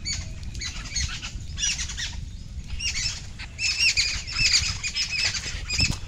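A small bird squawking: runs of short, repeated, arched high calls, several bursts a second, coming in four or five groups.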